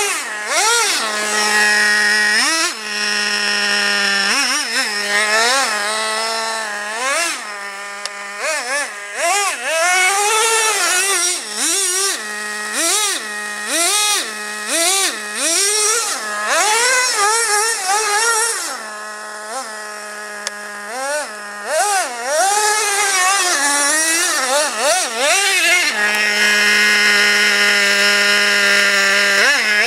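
Traxxas Revo 2.5 RC monster truck's 2.5 cc nitro engine revving up and down over and over as the truck is driven. It settles into a steady idle for the last few seconds.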